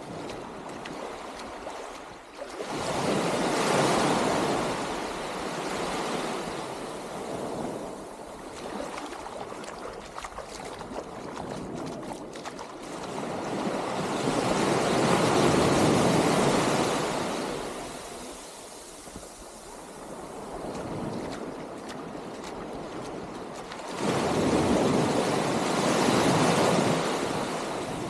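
Small sea waves breaking and washing up onto a sandy beach. The wash swells three times: about two seconds in, in the middle and near the end.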